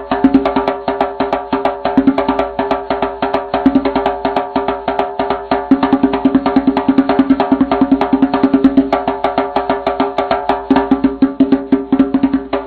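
A pitched percussion instrument played in a fast, steady run of strikes, each with a ringing tone.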